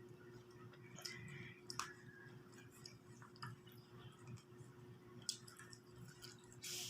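Faint, scattered clicks and taps of eating at a table, with spoon and fork on a plate and some chewing, over a steady faint hum.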